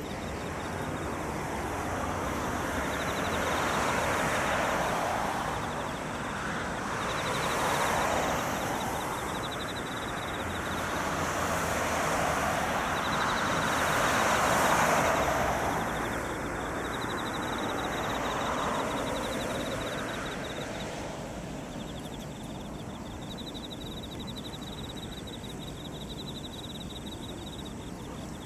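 Expressway traffic passing by, a rushing tyre-and-engine noise that swells and fades as vehicles go past every few seconds and settles to a steadier hum in the last few seconds. Insects trill steadily underneath in a high, fast-pulsing tone.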